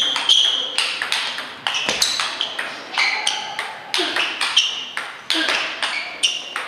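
Table tennis ball struck back and forth in a rally, sharp clicking pings off the bats and the table, a few each second.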